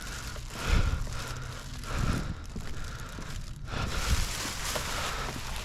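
Rummaging through discarded goods in a dumpster: plastic bags and packaging rustling and crinkling, with a few soft thumps as items are shifted.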